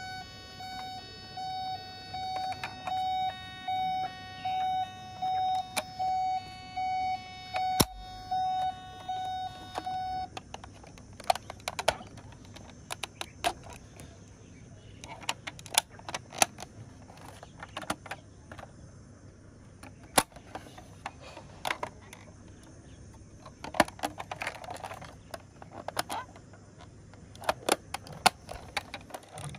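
Toy ambulance's built-in electronic siren sounding a high beeping tone that pulses on and off evenly, a little faster than once a second, then cutting off about ten seconds in. After that come light plastic clicks and taps as the toy's doors are opened and it is handled.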